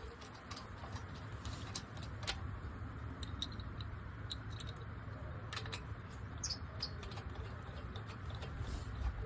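Scattered light metallic clicks and clinks of hand tools and brake hardware being handled, over a low steady hum.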